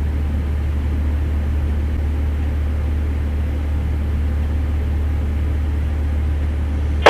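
A steady low mechanical drone with an even hiss, unchanging throughout.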